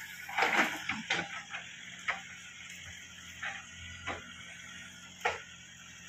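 Diesel engines of a crawler bulldozer and a tracked excavator running steadily, with about six sharp knocks or clanks at irregular intervals, the loudest just after the start and about five seconds in.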